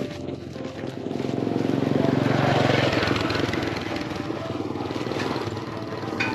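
A small engine passing, growing louder to about two and a half seconds in, then easing off.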